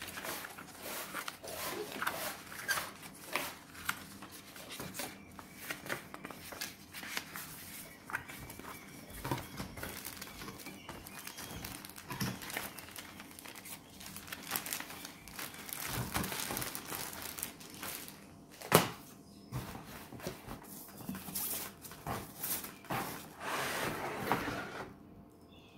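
Clear plastic packaging bags and paper booklets crinkling and rustling as they are handled inside a cardboard box, in many small irregular crackles. A single sharp knock stands out about three quarters of the way through.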